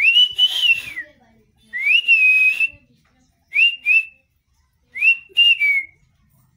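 Caged pet parakeet giving a series of clear whistled calls. Each note rises and then holds a high tone: two longer notes, then two quick pairs.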